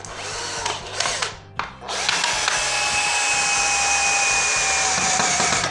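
Cordless drill-driver driving a side fixing screw through the base of a ceramic toilet: a couple of short bursts, then about three and a half seconds of steady running, its pitch dropping slightly, cutting off sharply near the end.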